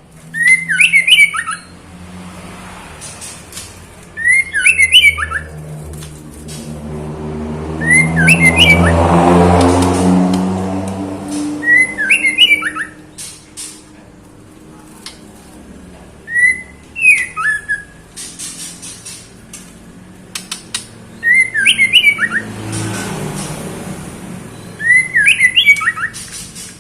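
Female white-rumped shama giving short, sharp clusters of call notes about every four seconds, seven in all: the call of a female in breeding condition summoning a male. A low motor hum swells and fades in the middle, between the calls.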